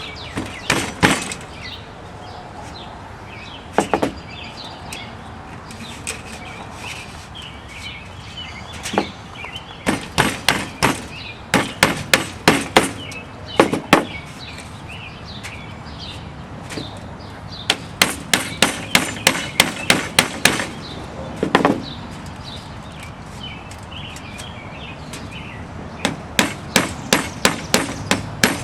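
Runs of sharp tapping, several quick taps about four a second with pauses between, as a metal spline is worked down into the channel of an aluminium window screen frame over new metal screening.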